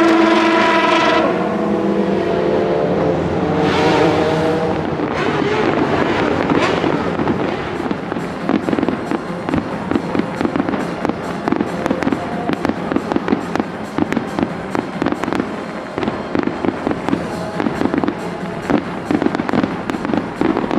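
Race car engines revving for about the first second, then an aerial fireworks display: dense, irregular crackling with many sharp pops from glittering crackle stars, thickest from about eight seconds on.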